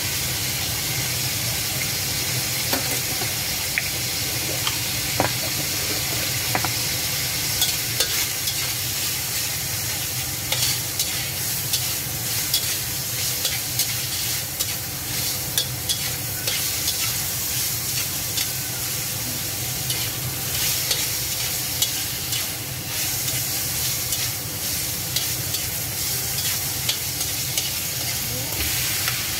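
Peeled shrimp sizzling in hot oil in a pan, stirred and turned with a slotted metal spatula that scrapes and taps against the pan in frequent, irregular clicks over a steady hiss.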